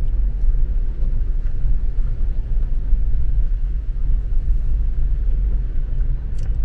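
Steady low rumble of a car rolling slowly along a gravel road, heard from inside the cabin: tyre and road noise over the engine. A brief click near the end.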